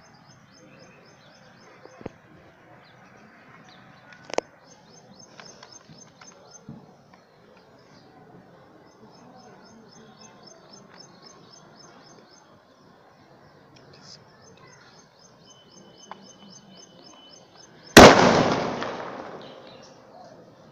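A firecracker goes off with one loud bang about eighteen seconds in, set off by radio remote, the sound dying away over a couple of seconds. Before it there is quiet outdoor background with small birds chirping and a single sharp click about four seconds in.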